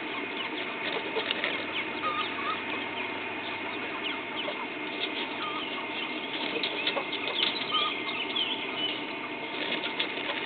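A flock of chickens clucking and calling, with wings flapping, as a busy run of many short calls.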